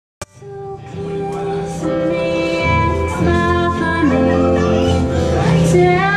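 Live song: a woman singing with an acoustic guitar, over a steady bass line. The sound cuts in with a click at the start, and the voice joins the guitar about two seconds in.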